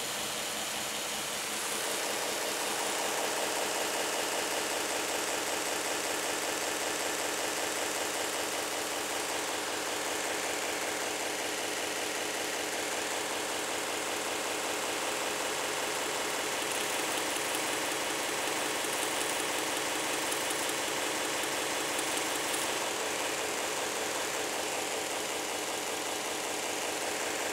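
A 2x72 belt grinder running steadily, with an A2 tool steel knife blade held flat against the moving abrasive belt and ground lengthwise along the platen.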